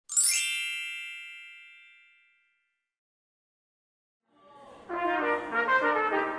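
A single bright bell-like ding, struck once and ringing away over about two seconds. After a short silence, brass music begins a little past four seconds in.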